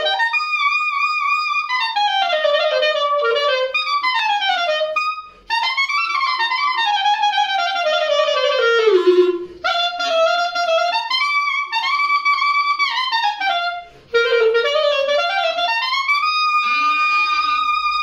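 Solo clarinet playing quick running passages, up and down, in four phrases with a short breath gap between each. It ends on a held high note.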